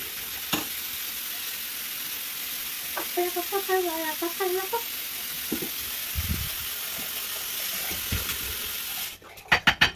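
A bathroom sink tap running steadily, a hissing rush of water that is shut off about nine seconds in. It is followed at once by a quick run of sharp, loud clatters.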